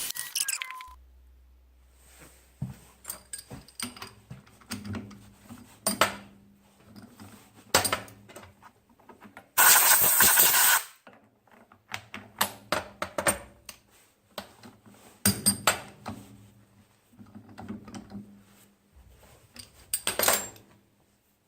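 A milling cut on aluminum stops in the first second. Then come scattered metallic clinks and knocks of tools and metal parts being handled at the mill, with one loud rushing noise lasting about a second near the middle.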